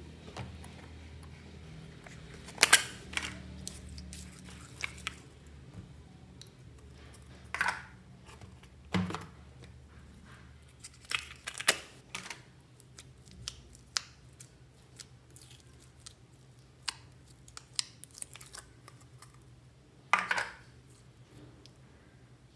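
Slime being handled and mixed: irregular sticky clicks and pops, with a few longer, louder crackles. A low hum fades out about halfway through.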